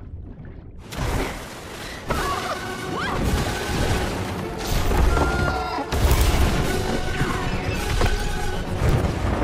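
Animated film soundtrack: music with crashing and booming impact effects. Quiet for about the first second, then the music and crashing hits come in suddenly, with the heaviest low booms about five and six seconds in.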